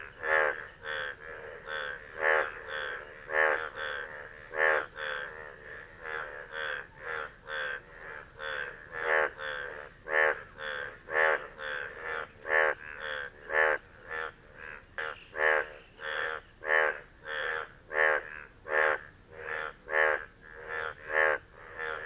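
Indian bullfrog mating calls: short croaks repeated about twice a second, some louder than others.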